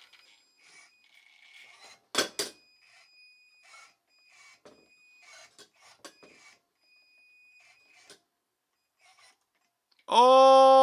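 Faint whine of a small RC truck's electric motor, creeping in short stop-start bursts, with light ticks and a sharp knock about two seconds in from the metal teeter-totter. Near the end a man lets out a loud, long held 'ohhh' as the truck nearly balances.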